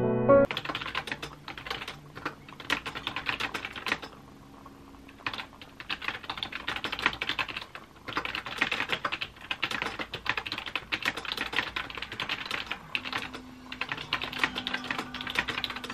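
Fast typing on a laptop keyboard (a 2019 MacBook Air), rapid key clicks in bursts broken by brief pauses. A piano piece ends about half a second in.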